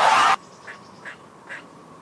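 A loud animal call that breaks off abruptly about a third of a second in, then three short, faint calls about half a second apart.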